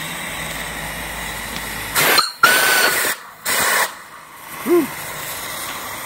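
Brass steam whistle on a small live-steam fire-tube boiler, under about 90 psi of steam, blown in three short blasts about two seconds in. Each blast is mostly a loud rush of steam with a thin high tone through it. Before the blasts there is a steady hiss of escaping steam, and a brief lower tone follows near the end.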